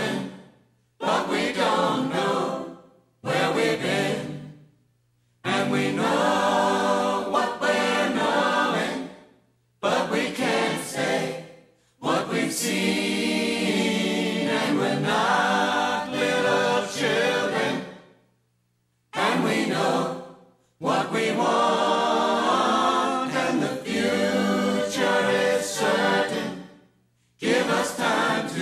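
Background music of a group of voices singing, in phrases a few seconds long broken by short silences.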